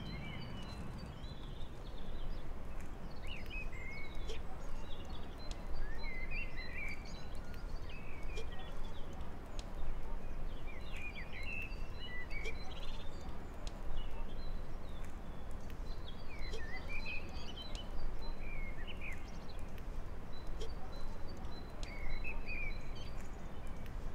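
Small birds chirping and twittering on and off, every second or two, over a steady low rumble of background noise.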